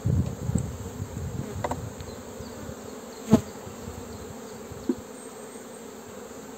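Honeybees buzzing in a steady hum over an open hive as a wooden frame is worked loose and lifted out with a frame grip. A low rumble in the first second or so, then a sharp wooden knock about halfway through and a lighter one near the end.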